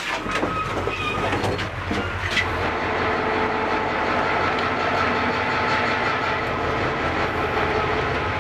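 A DE 22000-class diesel-electric locomotive running steadily at a standstill, a continuous engine hum with a steady whine. A few knocks sound in the first two seconds.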